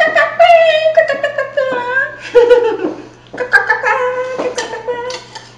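A woman laughing and giggling in several loud bursts with short pauses between them.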